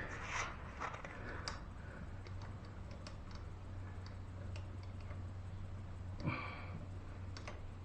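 Scattered light clicks and taps of hand tools and outboard motor parts being handled, a little louder about six seconds in, over a steady low hum.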